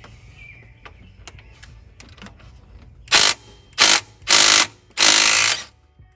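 Cordless impact tool running in four short bursts, the last the longest, loosening the bolt of a belt pulley; a few light clicks of tool handling come first.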